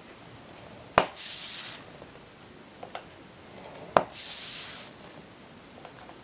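Hand scoring tool drawn along white cardstock on a grooved scoring board: twice, a sharp tap followed by a short scraping hiss, about three seconds apart.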